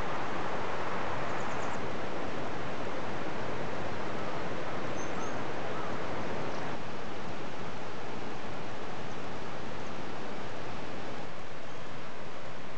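Steady rushing of a snowmelt-swollen river, with a few faint, high bird chirps about a second and a half and five seconds in.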